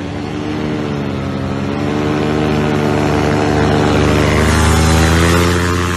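A motorboat's engine passing close by, its drone growing louder to a peak about five seconds in and then starting to fade.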